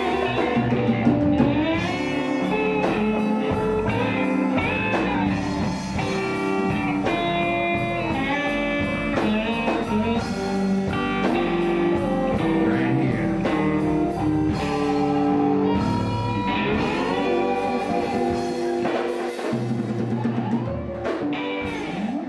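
Live electric blues band playing an instrumental passage: electric guitar lines with bent notes over drum kit and bass, with a steady cymbal tick. The playing thins out a little near the end.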